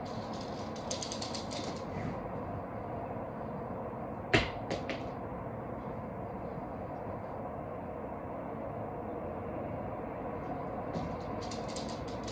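A dog's claws clicking on a hard floor as it moves about, with one sharp knock about four seconds in and two lighter ones just after; the claw clicking comes again near the end as it runs back across the floor, over a steady background hum.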